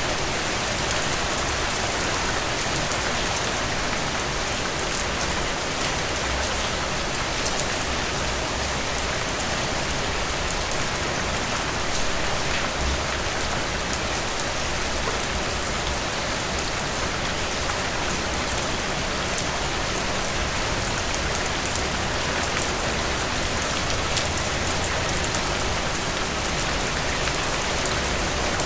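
Steady heavy rain falling on a surface, with dense individual drops spattering throughout.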